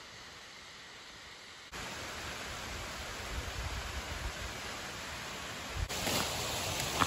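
Steady rushing of a waterfall down in the gorge, getting louder about two seconds in. Near the end, dry fallen leaves crackle and rustle underfoot.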